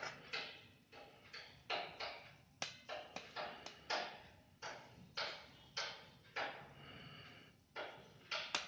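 A steel spoon scraping and clinking against steel dishes as cooked rice is served onto a stainless steel plate, in a quick, uneven run of short strokes about two a second.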